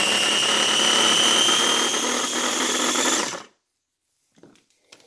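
Ninja electric food chopper running flat out on drained canned corn, a steady high motor whine over the whir of the blades. It stops about three and a half seconds in.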